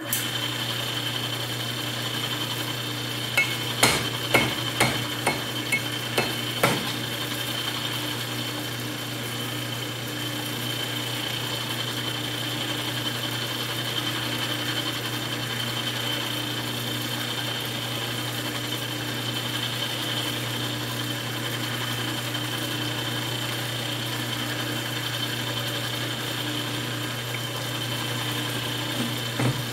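Metal lathe starting up and running steadily, spinning a cut-down section of a 5.3 L LS engine block in its chuck, with a constant motor hum and a high whine. A run of about seven sharp knocks comes a few seconds in, then steady machining noise.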